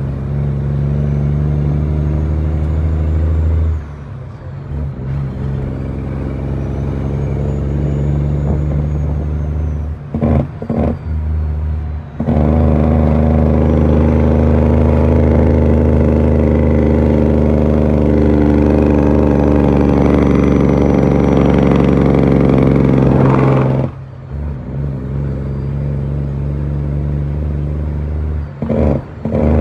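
Western Star dump truck's diesel engine heard from inside the cab, pulling steadily. The engine sound drops off briefly about 4 seconds in, twice between 10 and 12 seconds, and again near 24 seconds, then comes back, loudest in the long pull in the middle. A faint high whistle rises and falls along with it.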